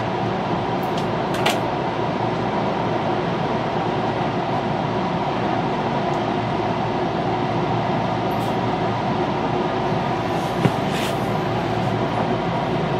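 Running noise inside a JR Nara Line rapid train's passenger car: a steady rumble of wheels on rail and running gear, with two brief sharp clicks, one about a second and a half in and one near the end.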